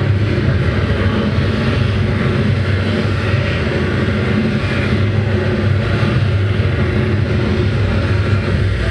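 Live experimental noise music: a loud, dense wash of noise over a steady low drone, with no beat and no break.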